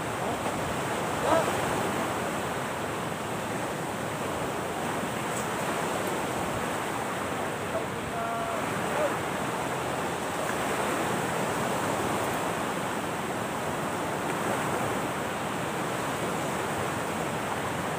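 Steady rushing noise of wind and surf along the shore, with faint snatches of voices a few times.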